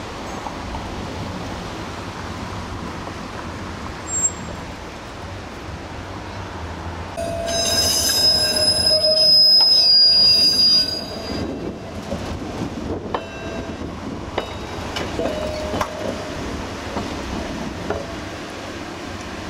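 PCC streetcar's steel wheels squealing as it rounds a curve in the track: a loud, high-pitched screech lasting about three and a half seconds, then a shorter, fainter squeal a few seconds later.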